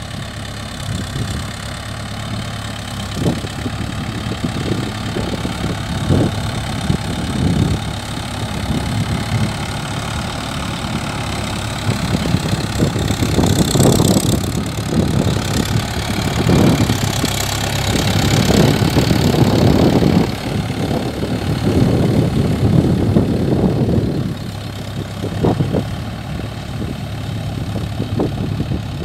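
Mahindra Yuvo 575 DI tractor's four-cylinder diesel engine running steadily under load while pulling a tine cultivator through the soil. It grows louder in the middle as the tractor turns close by, then eases as it pulls away.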